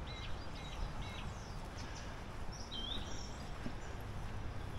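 Outdoor ambience: a steady background rush of noise, with a small bird chirping about three times in the first second and once more about halfway through.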